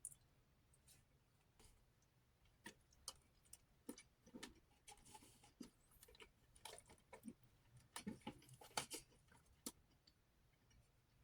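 Quiet eating: faint, irregular clicks and soft mouth sounds of someone chewing food, with stretches of near silence between them.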